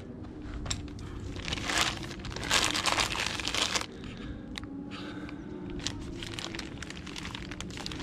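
Clear plastic bag around a new CV driveshaft crinkling as the shaft is handled, in two noisy bursts in the first half, followed by scattered light clicks and rustles.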